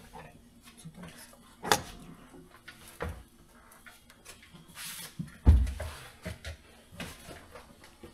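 Engine parts and tools being handled during piston fitting: scattered sharp clicks and knocks, with one heavy thump past the middle.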